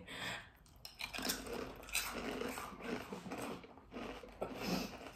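Two people biting into and chewing crunchy stick-shaped spicy crisps: a run of short, irregular crunches.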